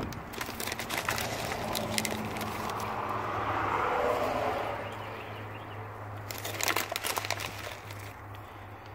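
Road traffic: a vehicle passing, its noise swelling to a peak about four seconds in and fading, over a steady low traffic hum. Short crackles from fingers handling seeds and soil come in the first couple of seconds and again around seven seconds.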